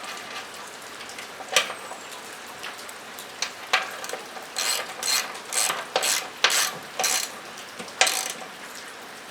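Socket ratchet wrench tightening a nut down onto a bolt and lock washer: a sharp click about a second and a half in, then a run of short ratcheting bursts about two a second. Rain drums steadily on a metal roof underneath.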